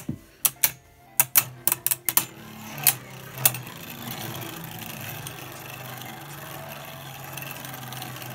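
Two Beyblade Burst spinning tops clashing in a plastic stadium: a quick run of sharp clacks over the first three or so seconds as they knock together, then a steady whirring as they spin and grind around each other.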